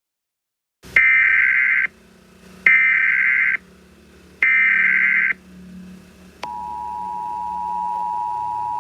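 Emergency Alert System tones: three short, shrill data bursts of the SAME header about a second apart, then the steady two-tone EAS attention signal, which starts about six and a half seconds in and holds.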